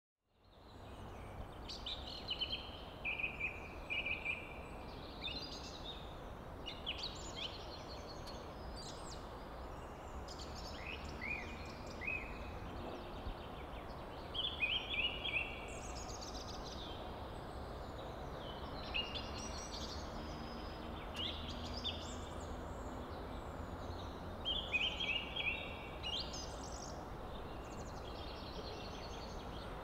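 Wild birds singing and calling in short, chirpy, repeated phrases, in clusters every few seconds, over a steady background hiss of open-air ambience.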